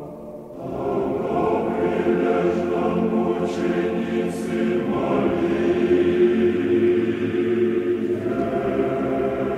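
A choir singing Russian Orthodox chant in slow, held chords, a new phrase starting about half a second in after a short breath.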